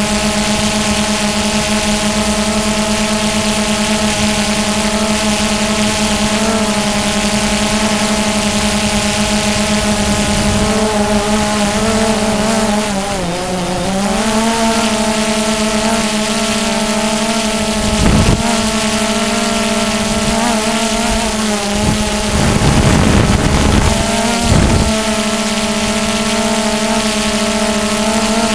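Quadcopter's electric motors and propellers whining steadily, heard from the camera on board. The pitch dips briefly about halfway through and comes back up, and gusts of wind buffet the microphone a few times in the second half.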